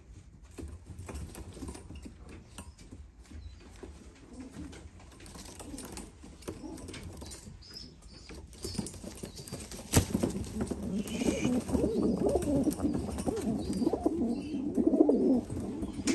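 Caged fancy pigeons cooing. The cooing is faint at first and grows steadily louder through the second half. There is one sharp click about ten seconds in.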